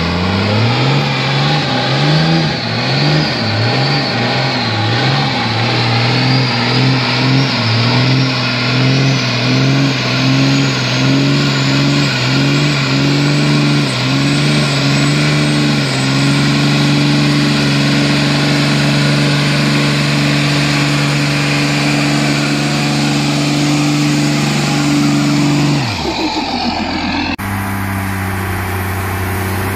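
Straight-piped, compound-turbo 12-valve Cummins inline-six diesel in a 1994 Dodge Ram 2500, revved in surges and then held at high revs through a tyre-smoking burnout, its pitch dropping suddenly when it is let off about 26 seconds in. After a cut near the end, the same engine runs steadily at lower revs on a dyno.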